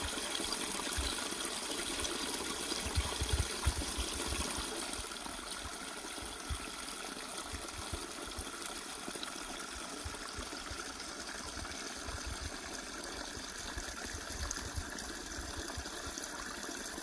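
Small woodland stream trickling and splashing steadily over rocks in a little cascade, with a few soft low thumps about three to four seconds in.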